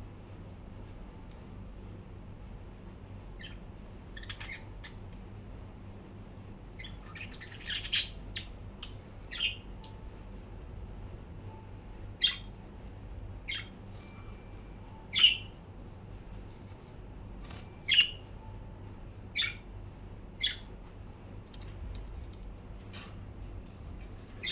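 Budgerigars giving short, sharp calls, about a dozen single calls a second or two apart, a few of them loud, over a faint steady low hum.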